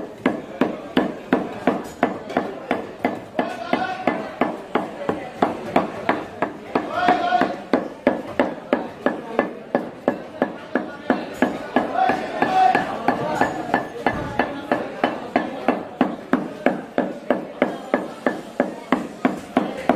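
Meat cleaver chopping and mincing meat on a round wooden chopping block, with steady, even strikes about three a second.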